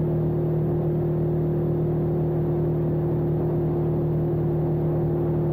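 BMW F850GS parallel-twin engine running steadily while cruising on the road: a constant drone that holds its pitch, over road rumble.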